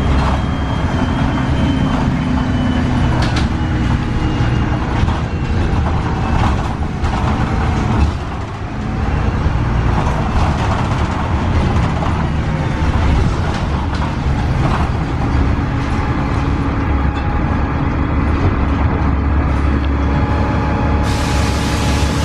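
Cabin sound of a 2002 Gillig Advantage transit bus under way, its Cummins ISC inline-six diesel running steadily under the floor, with scattered rattles and clicks from the body. A sharp knock about eight seconds in is followed by a brief lull.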